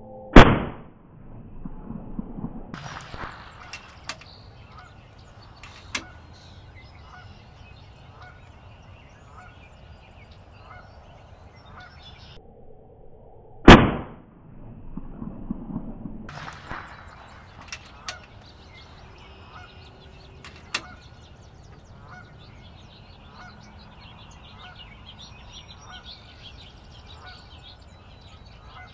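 Two sharp shots from a PCP air rifle, about thirteen seconds apart, each followed by a few lighter clicks. A faint call repeats steadily in the background between them.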